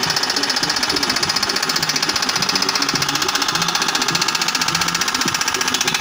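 Corded Makita electric demolition hammer (jackhammer) running continuously, its chisel breaking into rocky ground with rapid, steady hammering.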